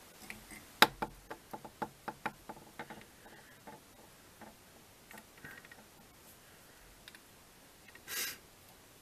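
Fly-tying handling noises at the vise while thread is wrapped to tie in a rabbit strip: a quick run of about a dozen sharp ticks over two seconds, then a few scattered light ticks, and a short rustle near the end.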